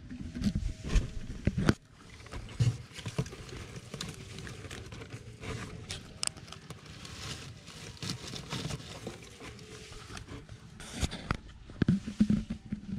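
Rabbits moving about, with irregular light taps, scrapes and rustles and a few louder knocks.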